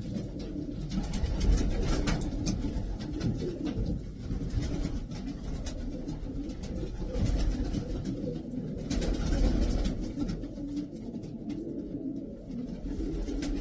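Racing pigeons cooing, a continuous low murmur of several birds, with scattered sharp clicks.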